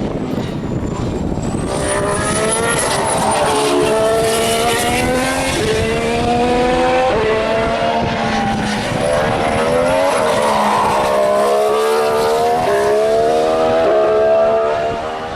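2014 Formula One car's 1.6-litre turbocharged V6 engine running on track, its note rising and falling with several abrupt steps in pitch at the gear changes.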